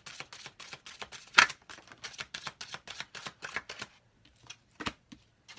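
A deck of oracle cards flicked through by hand: a quick run of papery card clicks with one louder snap, thinning out about four seconds in to a couple of single taps.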